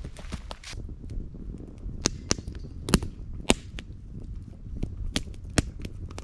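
Campfire crackling with irregular sharp pops and cracks of burning wood, a dozen or so, over a low rumble of the fire.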